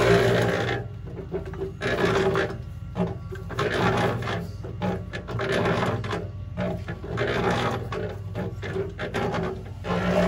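Concrete mixer running with its drum tipped, wet concrete scraping and sliding out of it in irregular gritty rasps over the motor's low hum. The mixer's fuller, louder running sound comes back just before the end.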